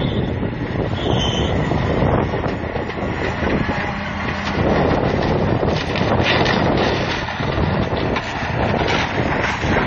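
Wheel loader's diesel engine running as the machine pushes and drives over mobile-home debris, with wind buffeting the microphone.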